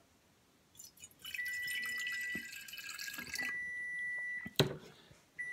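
3% hydrogen peroxide poured from a plastic bottle into a glass flask, a trickling, splashing pour starting about a second in and lasting a few seconds. A steady high tone sounds on and off over the pour, and a sharp click comes near the end.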